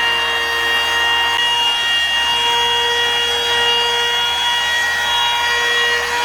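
Compact trim router running at full speed with its bit cutting wood: a steady high whine over a rough cutting noise.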